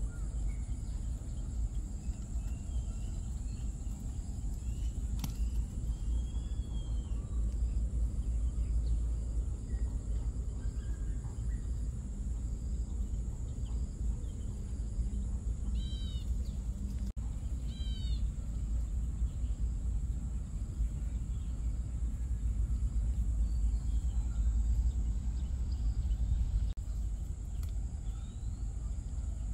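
Outdoor rural ambience: a steady low rumble under a constant thin high tone, with a bird giving two short runs of quick chirps a little past halfway.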